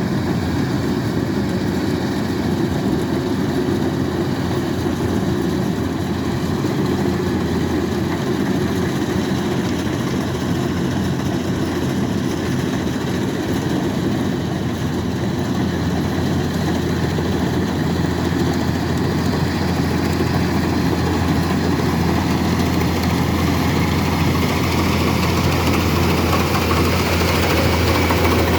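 Kubota DC-105X combine harvester's diesel engine running steadily under harvesting load, with a deep steady hum, growing a little louder near the end.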